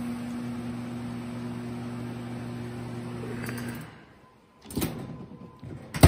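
Built-in microwave oven running with a steady electrical hum, now that a new door switch is fitted and it no longer blows its fuse; the hum cuts off suddenly a little under four seconds in. Near the end come two clunks as its drop-down door is opened.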